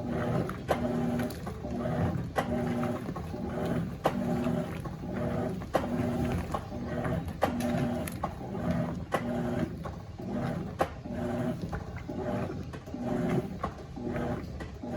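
Electrolux LF90 top-loading washing machine agitating a load of towels during the pre-wash: the agitator motor hums in short, evenly repeating pulses as it drives back and forth, with a sharp click every second or two.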